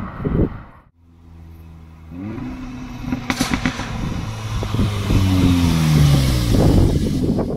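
Seat Leon Cupra 300's turbocharged 2.0-litre four-cylinder through a Milltek Sport exhaust. After a short loud blip that cuts off, the engine runs steadily, then the revs climb. Later the revs fall away with crackles and pops from the exhaust.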